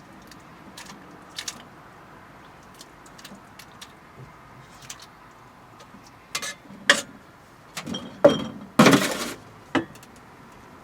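Kitchenware being handled: scattered faint ticks, then a run of sharp knocks and clinks in the second half, with a short, louder noisy burst about nine seconds in.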